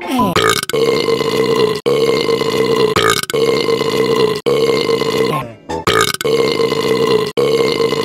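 A loud burping sound effect repeated back to back, about seven long burps in a row, roughly one every 1.3 seconds. Each burp opens with a falling pitch and then holds on a steady low note.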